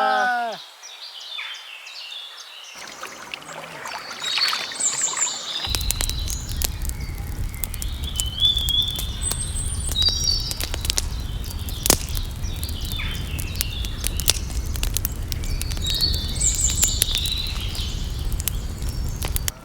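Birds chirping and whistling in short repeated calls outdoors. About six seconds in, a steady low rumble starts, peppered with frequent sharp clicks and crackles.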